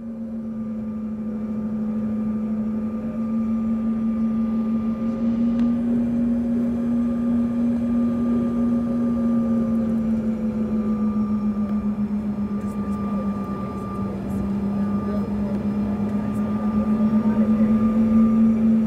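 Jet airliner cabin noise while taxiing: a steady engine hum with a low drone and a fainter whine above it. The pitch rises slightly a few seconds in and again near the end, growing a little louder.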